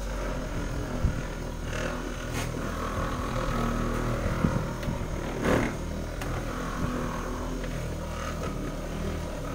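Electric rotary car polisher running steadily, its microfiber pad buffing dried pre-wax cleaner off a car door panel, with a few brief knocks.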